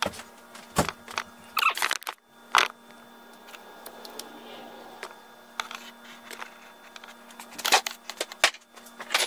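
Scattered sharp clicks and light knocks from something being handled, the loudest a little after two and a half seconds and again near the end, over a faint steady hum.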